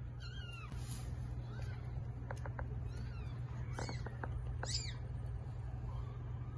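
Newborn kittens mewing: about five short, thin, high squeaks that bend up and down in pitch, with a few light clicks in the middle, over a steady low hum.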